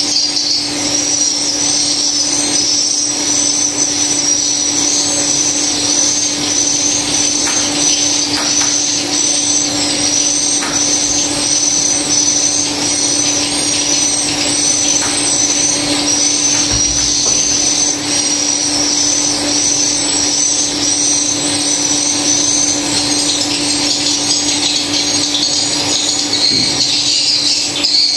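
Swiftlet calls: high-pitched chirps repeating steadily, about one or two a second, over a steady low hum.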